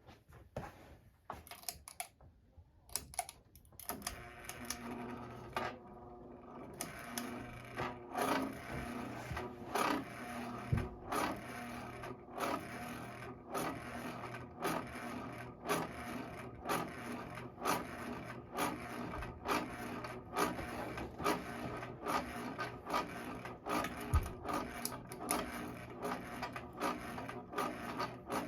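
Hampton Bay Littleton ceiling fan starting up and running: a steady motor hum comes in about four seconds in, with a regular rubbing tick a little under once a second that grows slightly quicker as the fan speeds up.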